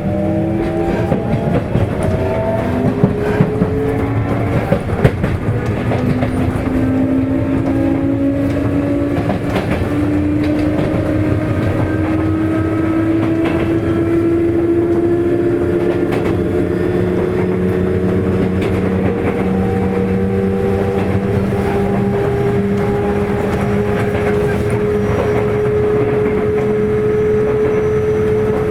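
Sotetsu 8000 series motor car's Hitachi IGBT-VVVF inverter and traction motors whining, heard from inside the car, with tones that climb slowly in pitch as the train gathers speed. Underneath runs the steady rumble of the wheels on the rails, with a few rail-joint clacks a few seconds in.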